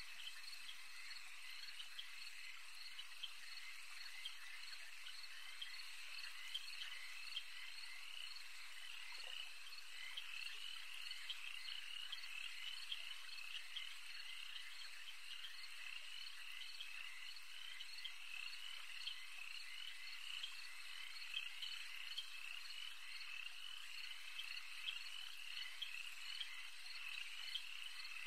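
Faint, steady chorus of frogs: many short chirping calls overlapping, several a second, without a pause.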